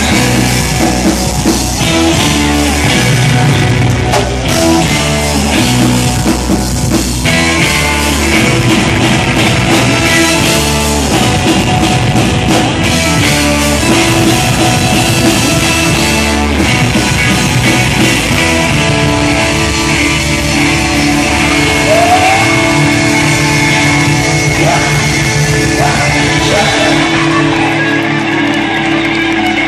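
A live band playing loudly with electric guitars, bass and drums. The lowest bass notes drop away near the end.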